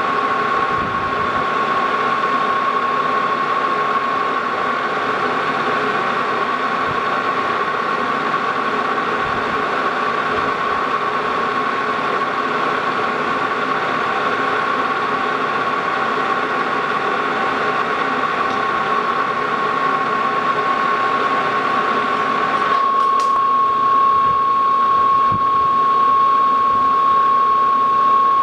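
Lodge & Shipley Model X metal lathe running with a steady whine while it takes a light spring cut on a bolt's threads. Near the end the sound thins with a click, and the whine carries on.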